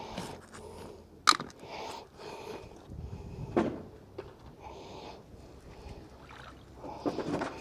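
Magnet-fishing magnet being handled and thrown into a canal on its rope. There is a sharp clack about a second in. The magnet lands in the water with a splash about three and a half seconds in, followed by rope rustling near the end.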